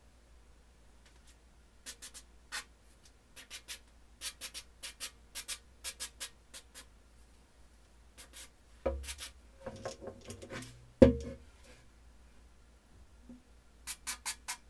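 Short hissing squirts from an aerosol spray can with a straw, two or three a second, spraying lubricant onto an old cast-metal hand drill. Midway the drill is picked up and handled with a few knocks, the loudest a sharp knock a little past the middle, then four quick squirts near the end.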